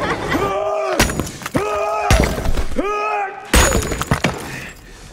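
Dramatic film-soundtrack sound: a pitched, voice-like tone that rises into a held note and falls away, three times, each ending in a loud crash with a breaking, shattering quality. It dies down near the end.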